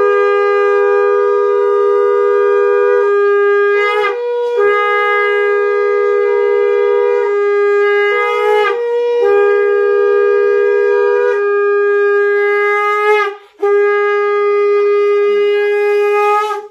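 Conch shells blown in long, loud, steady notes. Two of them sound together at slightly different pitches, each breaking off briefly every few seconds for breath.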